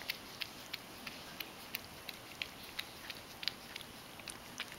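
Ragdoll cat lapping spilled goat milk off a wooden floor with its tongue: quick wet clicks in an even rhythm, about three a second.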